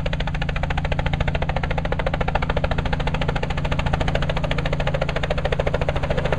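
Light two-bladed helicopter flying low and approaching, a rapid even rotor chop over a steady low engine hum.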